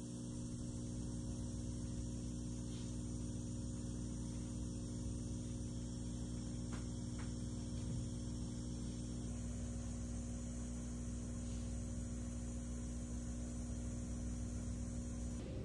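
Steady low electrical hum with several held tones from a suction-cup electrotherapy unit working on a wrist. The tones cut off near the end.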